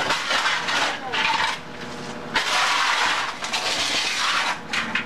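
Demolition work on masonry: repeated rough scraping and breaking noises, with one sharp strike about two and a half seconds in.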